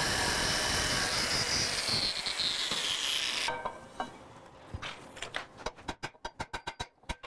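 Angle grinder with a cutoff disc cutting through a handle rivet on a skillet: a loud steady grinding hiss whose pitch sinks just before it stops about three and a half seconds in. Then a run of light clicks and knocks.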